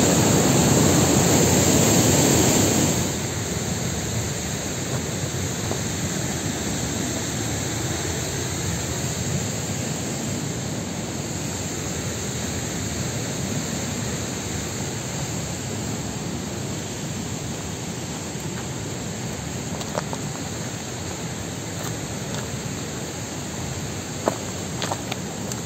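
Steady rush of a forest river and small waterfall, loud for the first three seconds, then dropping to a softer, even rush. A few faint clicks near the end.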